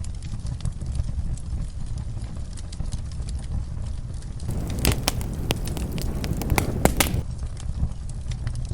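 Wood fire crackling in a fireplace: a steady low rumble of flames with frequent small pops and snaps. A cluster of louder, sharper pops comes from about halfway to three-quarters of the way through.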